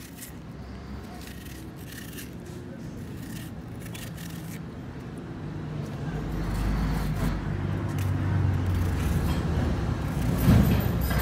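Small knife cutting through an onion held in the hand, faint soft cuts and scrapes. From about six seconds in, a nearby motor vehicle's engine rumble grows louder and becomes the loudest sound.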